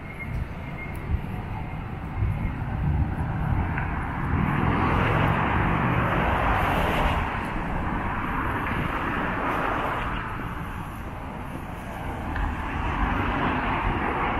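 Road traffic passing on a multi-lane avenue: a steady rumble of engines and tyres that swells as vehicles go by, loudest from about a third of the way in and again near the end.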